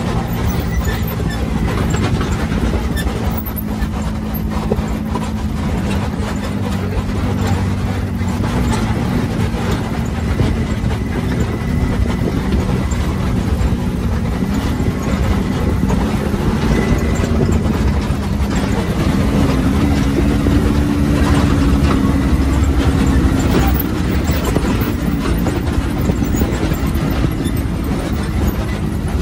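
Can-Am off-road vehicle's engine running as it drives along a rocky dirt trail, with a low rumble throughout. Its pitch rises and falls with the throttle and climbs for a few seconds about twenty seconds in.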